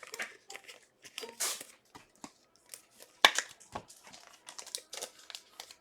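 Trading-card pack wrappers crinkling and tearing, with irregular clicks and rustles of cards being handled; the loudest is a sharp crack about three seconds in.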